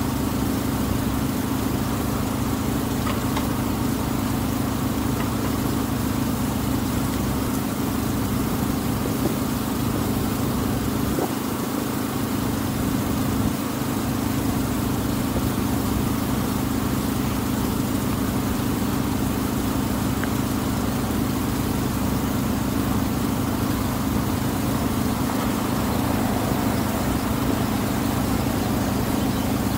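The Tuula II wooden water bus's engine running steadily, heard from the deck as a constant low drone with a strong steady hum.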